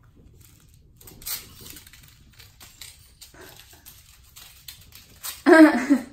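Light taps and rustling of kittens playing with toys on a wood floor and cat bed, then near the end a short, loud, wavering meow from a cat.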